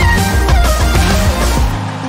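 Background music with a heavy bass beat. Near the end the bass and the high notes drop out, leaving a thinner, held texture.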